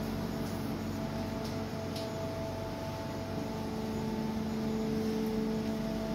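Steady machinery hum in a ship's engine control room: a low rumble with several unchanging tones from the running engine-room plant and ventilation.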